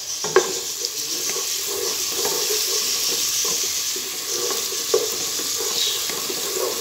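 Sliced onions with garlic, ginger and dry coriander sizzling in hot oil in a pot, stirred with a wooden spatula that scrapes and knocks against the pot a few times.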